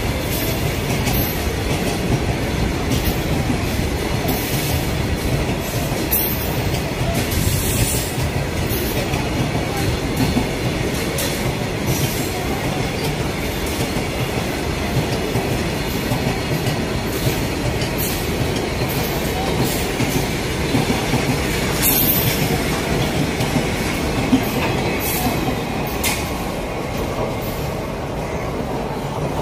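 Indian Railways goods train of covered box wagons rolling past at close range: a steady rumble of steel wheels on rail, with irregular sharp clanks from the wagons.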